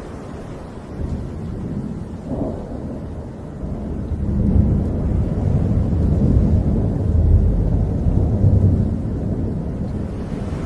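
Rain and wind ambience with a long, deep rumble that swells about a second in, is loudest in the middle and fades toward the end.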